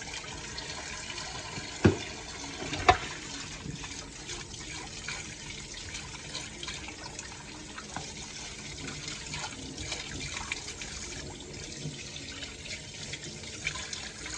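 Kitchen sink tap running steadily while dishes are washed under it, with two sharp dish knocks about two and three seconds in and lighter clinks throughout.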